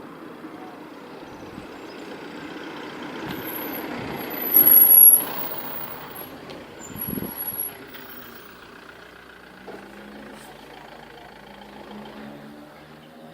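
Vehicle traffic noise: a steady rumble with thin, high squeals in the first half and two louder swells as something passes, the louder one about five seconds in. In the second half a low, steady engine hum takes over.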